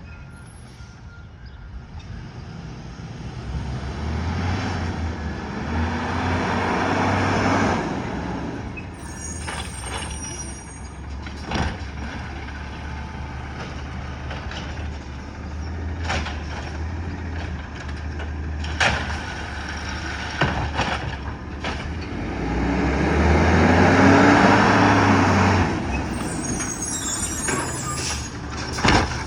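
City of Ontario garbage truck's diesel engine running and revving up twice, with short hisses from the air brakes. Several sharp knocks and clanks come from the truck between the revs.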